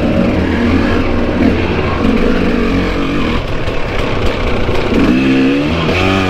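KTM EXC enduro bike engine running steadily on a dirt trail. Near the end, a second dirt bike close alongside revs up and down.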